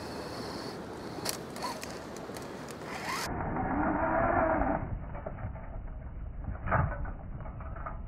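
Traxxas TRX-4 RC rock crawler's electric motor and drivetrain whining under load as it climbs a steep sand bank. The pitch rises and then falls over about a second. A sharp knock follows near the end.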